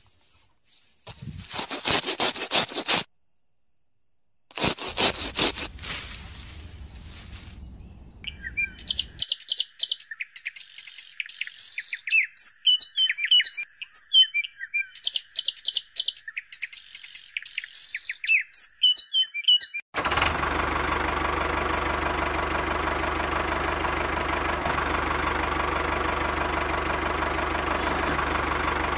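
Rustling and scraping bursts for the first few seconds, then birds chirping in a repeating pattern, and from about twenty seconds in a steady engine drone that runs on without change.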